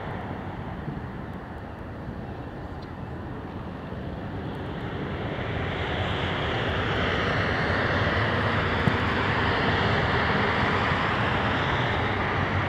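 Jet noise from a KLM Fokker 100's rear-mounted Rolls-Royce Tay turbofans at take-off thrust as the aircraft climbs away. It is a steady rushing rumble that swells louder over the middle few seconds and then holds.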